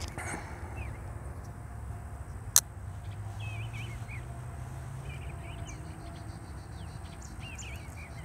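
Small birds chirping in short twittering phrases, with a single sharp click about two and a half seconds in and a low steady rumble underneath.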